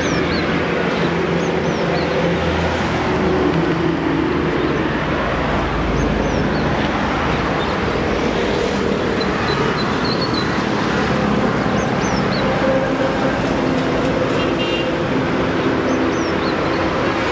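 Steady road and traffic noise, with engine hum running throughout.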